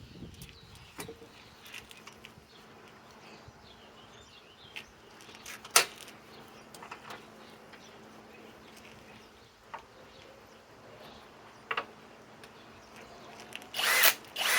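Scattered clicks and knocks of tools being handled, with a sharp knock about six seconds in, a quick double click near twelve seconds and a short clatter near the end, over a faint steady hum.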